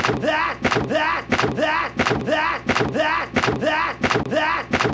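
A short voice-like snippet repeated in a fast, even loop about two and a half times a second, each repeat opening with a sharp click: an edited stutter loop of a cartoon sound clip.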